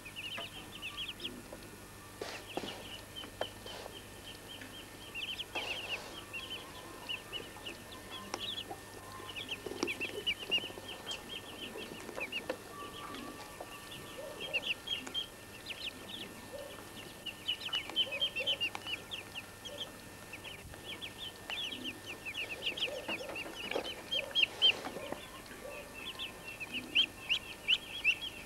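Muscovy ducklings peeping, a rapid, continuous stream of short high peeps from several birds at once.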